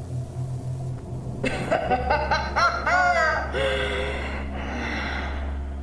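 A woman laughing, starting about a second and a half in and dying away after about five seconds, over a low steady hum.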